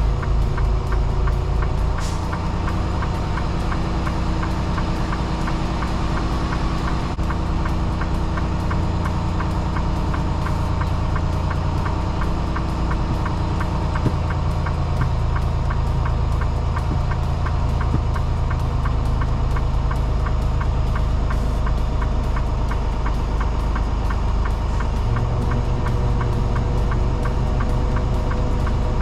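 Semi truck's diesel engine running steadily at low revs during slow maneuvering. The engine note shifts about two seconds in and again near the end.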